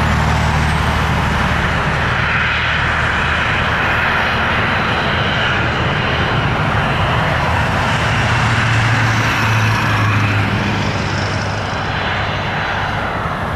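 Airbus A320 jet engines at climb-out power after takeoff, a loud steady rumble with a broad rushing noise over it, easing slightly near the end as the airliner climbs away.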